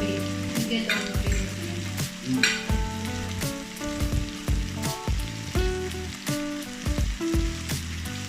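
Samgyeopsal pork belly sizzling as it fries on a grill pan, with frequent sharp clicks and taps.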